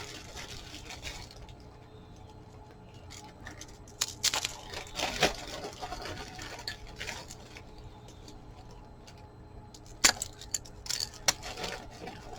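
Scattered clicks and rustles of jewelry and packaging being handled and pulled from a box, in small clusters a few seconds apart, over a steady low hum.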